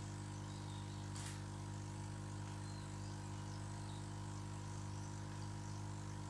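Small electric aquarium air pump humming steadily while it pushes air through an airstone into a bag of water, oxygenating the water and inflating the bag for transporting fish.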